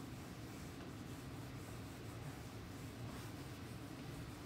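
Whiteboard eraser rubbing across the whiteboard, a faint, steady wiping sound as marker drawings are cleared.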